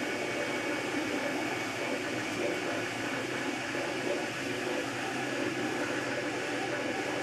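MakerBot Replicator 2 3D printer running a print: its stepper motors whir and buzz as the extruder head shuttles back and forth laying down a layer, over the steady noise of the extruder's cooling fan.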